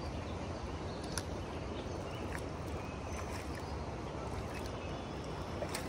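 Steady rushing of river rapids, with a few faint clicks.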